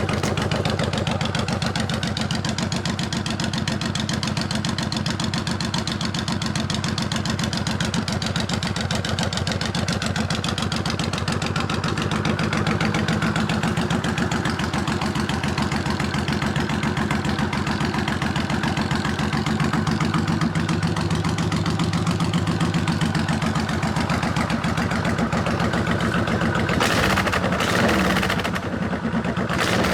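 Honda VTX1300's V-twin engine idling steadily through a loud aftermarket Bub Jug Hugger exhaust, with a short burst of louder noise near the end.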